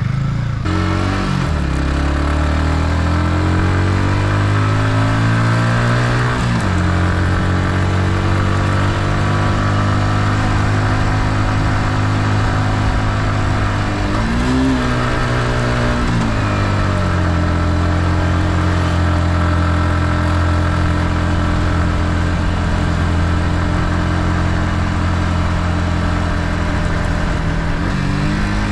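Yamaha MT-15's single-cylinder engine through its stock exhaust, heard onboard while riding: it pulls with rising revs for several seconds, drops in pitch at about six seconds as it shifts up, then runs at a steady cruise with a brief rise and fall in revs about halfway through.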